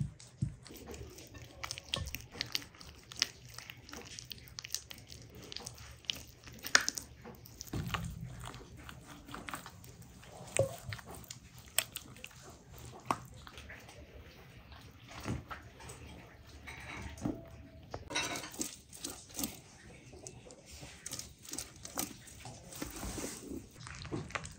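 Hands rubbing a thick marinade into a whole raw lamb carcass: irregular wet squelches and slaps of palms and fingers on the coated meat.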